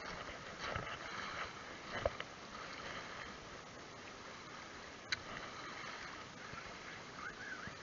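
Small waves lapping at the water's edge of a shingle shore, with a sharp click about five seconds in.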